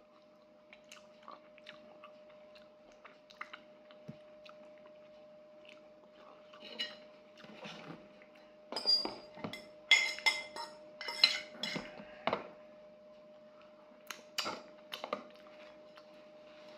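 Close-up chewing with soft mouth clicks, then from about nine seconds in a run of sharp clinks and knocks of a ceramic plate being handled on a table, with a few more near the end. A faint steady hum runs underneath.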